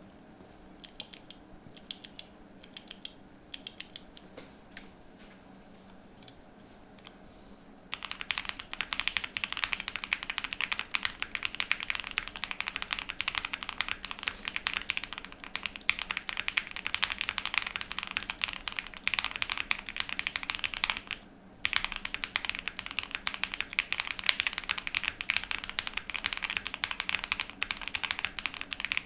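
Cub65 mechanical keyboard with a POM plate, full foam, lubed Vertex V1 switches and GMK WOB keycaps being typed on. A few separate keystrokes come in the first few seconds. About eight seconds in, continuous fast typing begins; it stops for a moment about two-thirds of the way through, then carries on.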